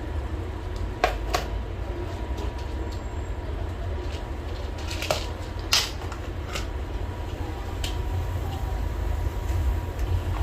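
Small clicks and taps of tools and parts being handled on a repair bench, about six of them, over a steady low hum with a faint steady whine.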